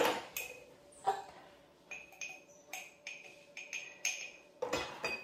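Light clinks of a metal teaspoon knocking against a container, about ten spaced taps each with a brief ring, as salt is measured out.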